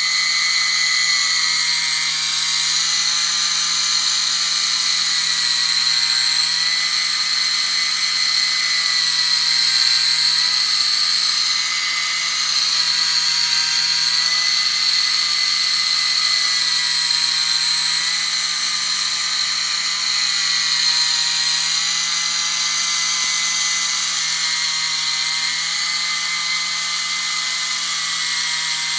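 Small Globe Industries DC gearmotor running steadily with a high whine as it turns the synthesizer's stacked rotary wafer switches. The pitch wavers slightly in a slow repeating cycle.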